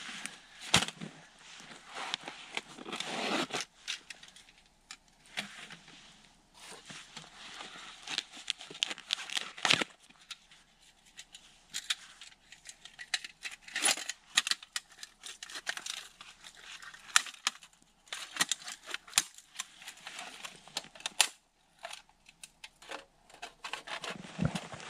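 Irregular rustling and crinkling, broken by many sharp clicks and snaps.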